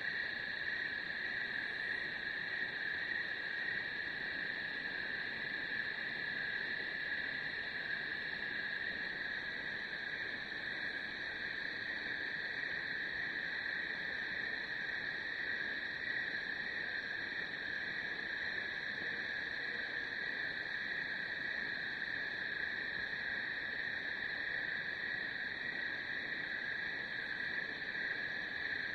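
A steady, high-pitched chorus of night animals, even and unbroken.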